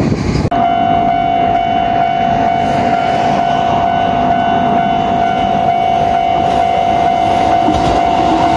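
Japanese level crossing warning alarm sounding as a barrier stays lowered for an approaching diesel railcar: one steady high tone that starts abruptly about half a second in, over a steady rumble of background noise.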